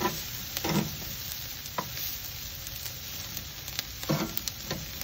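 Asparagus sizzling on a very hot grill grate, with a few short clicks and scrapes of metal tongs turning the spears.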